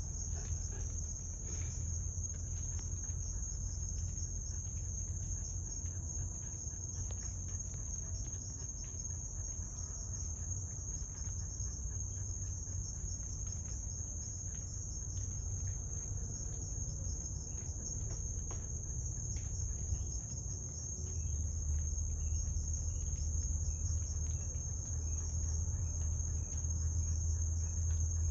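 Night chorus of crickets: a continuous high-pitched trill that holds steady throughout. Underneath it runs a low hum, which grows louder over the last several seconds.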